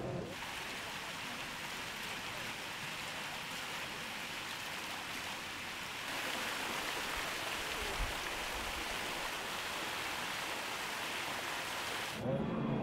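Fountain jets splashing into a pool: a steady rush of falling water, a little louder about halfway, with one soft low bump near the end.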